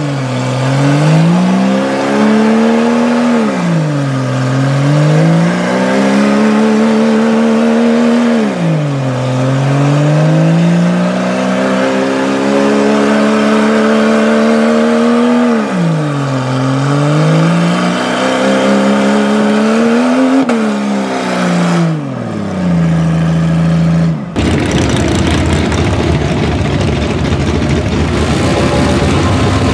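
Jeep Cherokee engine revving up and down several times while its tyres spin and churn through deep mud, then holding steady for a moment. About 24 seconds in, it cuts abruptly to the rougher, steady running of an ATV engine in mud.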